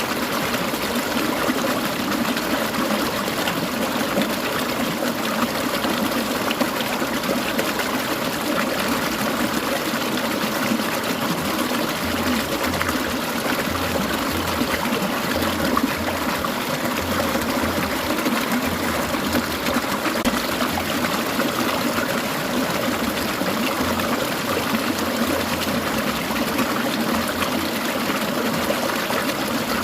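Clear mountain stream trickling and gurgling, a steady, even rush of water.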